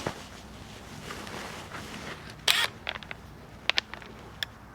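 Metal hand tools being handled: a short scrape about halfway through, then a few separate sharp clicks and clinks.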